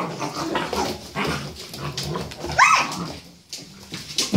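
Puppies play-fighting over a shaggy rug, with low growls and scuffling and claws clicking on a tiled floor. One short rising yelp about two and a half seconds in is the loudest sound.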